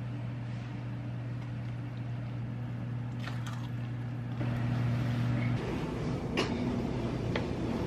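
A steady low mechanical hum, which changes and gets a little rougher a bit past halfway, with a few faint clicks of a spoon stirring batter in a ceramic bowl.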